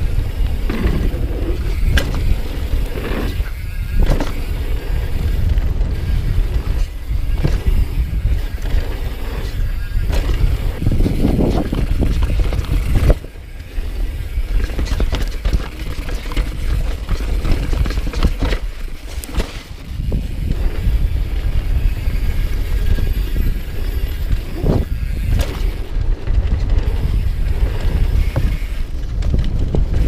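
Mountain bike ridden fast down a dirt trail, heard from a camera on the bike: wind rumbling on the microphone, tyres rolling on packed dirt, and irregular knocks and rattles from the bike over bumps. The noise drops abruptly about 13 seconds in, then builds again.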